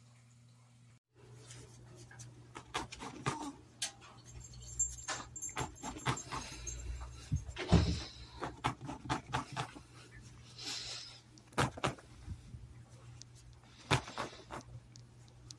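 A small dog rolling and squirming on a blanket: fabric rustling with irregular knocks and taps, and a couple of louder bursts near the middle.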